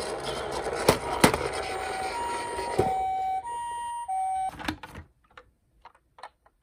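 Toy ambulance's electronic hi-lo siren, two alternating notes switching about every two thirds of a second, starting about two seconds in after a noisy stretch with two sharp clicks. It stops with more clicks, then only small ticks follow.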